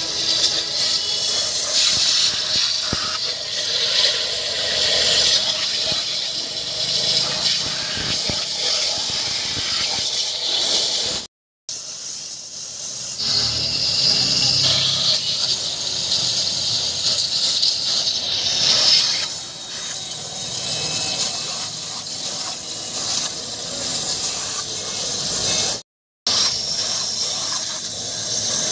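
Pressure-washer jet hissing and splashing on a bare diesel engine block with the cylinder head off, flushing out the cylinders and the water and oil passages. The spray runs steadily and drops out completely for a split second twice, about eleven seconds in and near the end.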